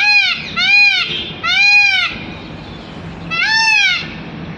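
Indian peafowl (peacock) calling: three loud calls in quick succession, each rising then falling in pitch, then a fourth after a pause of about a second and a half.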